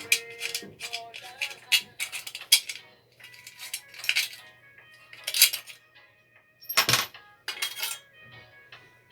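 Metal tools and small engine parts clinking and clattering as they are handled, a dozen or so sharp clicks, with music playing in the background.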